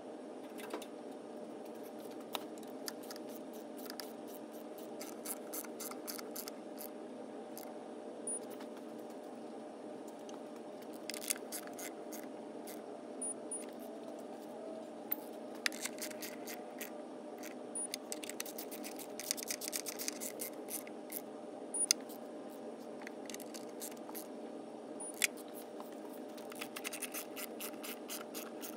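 Ratchet wrench clicking in quick runs now and then, with scattered sharp metal clinks of tools, over a steady background hum.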